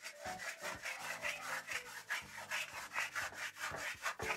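A Stanley Surform rasp scraping and shaving a hard-packed mound of dry clay dirt in quick, repeated strokes.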